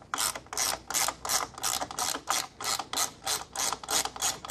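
13mm ratcheting spanner clicking in quick back-and-forth strokes, about three strokes a second, undoing the nut on a roof-top tent gas strut's top mount.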